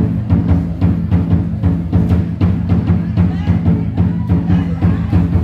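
Large drum beaten in a fast, even rhythm, about three strokes a second, each stroke booming low.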